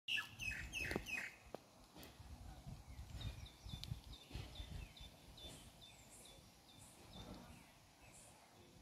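Palm squirrel chirping: a run of loud, falling chirps in the first second, then a regular series of short high chip notes, about three a second, that fades near the end.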